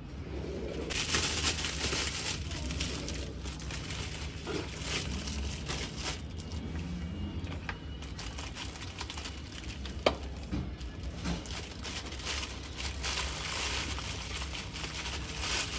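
Clear plastic packaging bags crinkling and rustling as sandals are pulled out of them, with one sharp click about ten seconds in.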